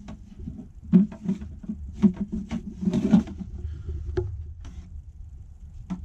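Removable plastic divider being handled in a portable fridge-freezer's plastic compartment: a run of light knocks and clatters, bunched about one, two and three seconds in, then sparser.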